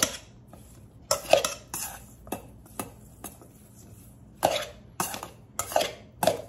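Metal tongs tossing oiled cut vegetables in a stainless steel mixing bowl: irregular clinks and scrapes of metal on metal, the louder hits ringing briefly.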